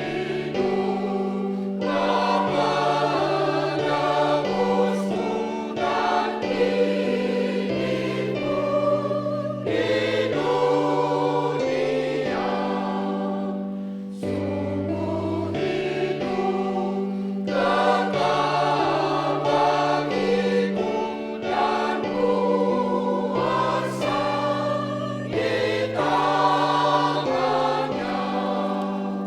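Church choir singing together in several voice parts.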